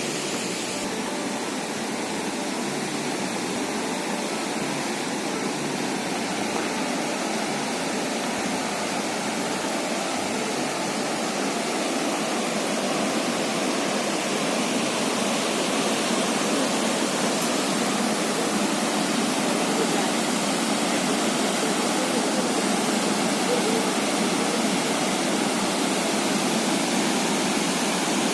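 Waterfall: a steady rush of falling water, a little louder in the second half.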